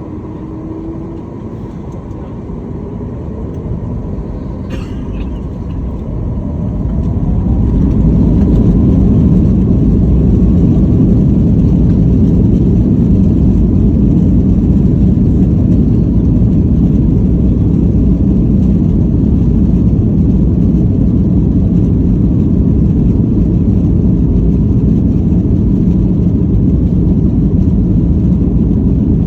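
Boeing 737 MAX's CFM LEAP-1B jet engines spooling up to take-off power, growing louder over the first several seconds, then running at a steady loud rumble through the take-off run.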